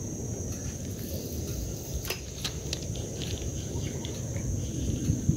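Steady high-pitched drone of insects in the waterside vegetation, over a low rumble. A few sharp clicks come about two to three seconds in.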